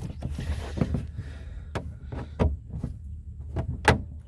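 Scattered knocks, clicks and rubbing as a rubber Uniseal is pushed and worked into a drilled hole in the plastic wall of an IBC tote.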